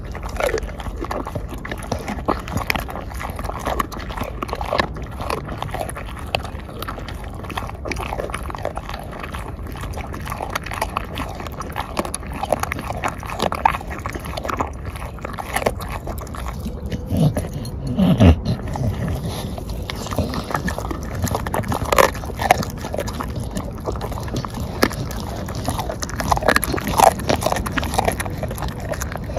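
A bulldog-type dog chewing and crunching a whole raw black-skinned chicken, with irregular wet bites and cracks. Near the middle there is one brief low falling grunt.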